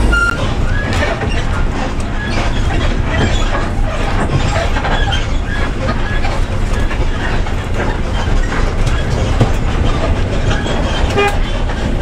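Inside a moving bus: the engine running with a steady low rumble under constant clattering and rattling from the bus body and fittings as it rolls along the road.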